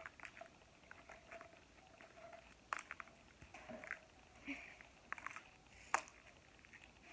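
Small plastic fidget toys being handled and set down: scattered light clicks and taps, two sharper clicks about three and six seconds in.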